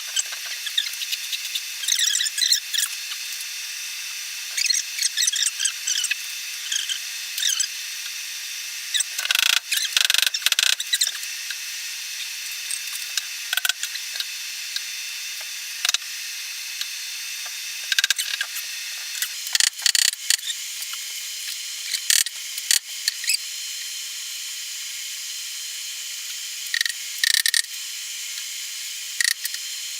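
Workshop hand-tool work on an oak slab: scattered clicks, taps and short scraping bursts over a steady hiss, with a few longer rattling stretches.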